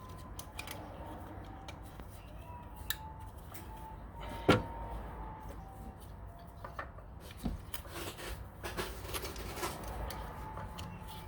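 Scattered clicks and light knocks of plastic ignition coil connectors and parts being handled, with one sharp click about four and a half seconds in.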